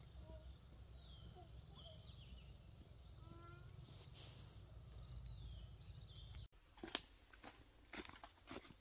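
Faint forest ambience: birds calling, a repeating high chirp and a low rumble. About six and a half seconds in, this cuts to footsteps crunching over dry leaves and twigs on a forest path, one step louder than the rest.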